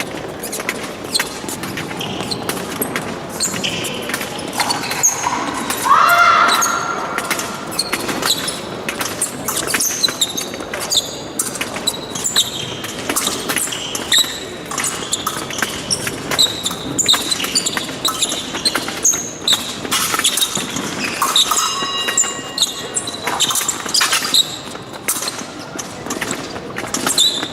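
Épée fencers moving on the piste: sneakers squeaking and feet stamping, mixed with quick clicks and clinks of blade contact, echoing in a large hall. A louder held sound rises briefly about six seconds in.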